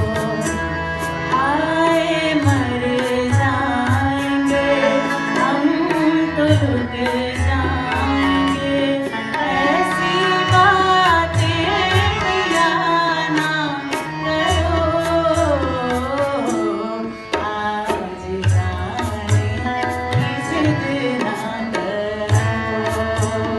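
A woman singing a ghazal into a microphone with tabla accompaniment, her voice sliding and holding long notes over irregular low drum strokes.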